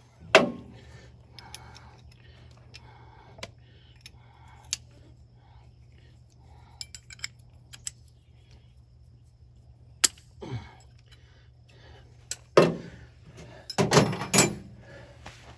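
Clinks and clicks of steel open-end wrenches on the JIC fitting of a standby generator's oil drain hose as it is loosened: a handful of sharp metal clinks spread out, the loudest bunched near the end.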